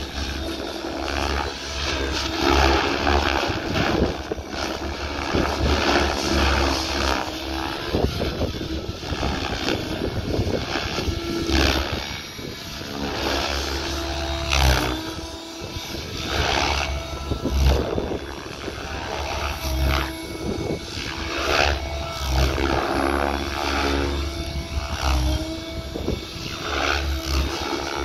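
Specter 700 radio-controlled helicopter flying aerobatics. Its main rotor blades swish and its drive whines, the pitch rising and falling again and again as the rotor is loaded and unloaded through the manoeuvres.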